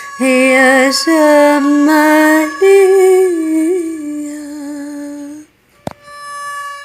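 A woman singing a Tunisian folk melody with vibrato, ending on a long held note. About five and a half seconds in the voice stops, a short click follows, and an instrumental melody starts near the end.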